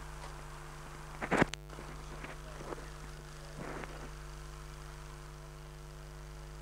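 Steady electrical hum with an even, buzzy set of tones under it, and one sharp knock about a second in followed by a few fainter clicks.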